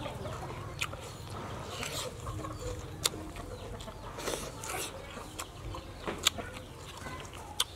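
Chickens clucking in the background, with a few scattered sharp clicks.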